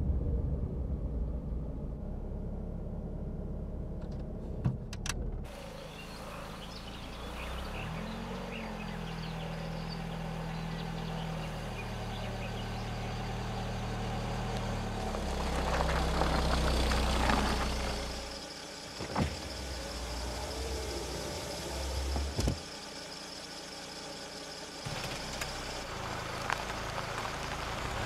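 A car driving: steady engine and road noise, with the low engine tone shifting in pitch a few times and a few short sharp clicks along the way.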